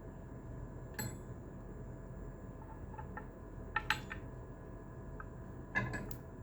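A few light, sharp clicks and clinks of small hard objects: one about a second in, a quick cluster near four seconds and another near six seconds, over a faint steady hiss with thin electrical tones.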